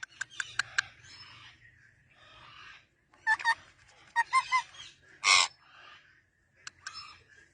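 Pet parrot calling: a few sharp clicks, two sets of short pitched chirps, and one loud harsh squawk about five seconds in.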